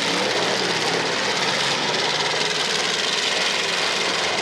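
Engines of several demolition derby cars running together, a steady, loud mass of engine noise with no single crash standing out.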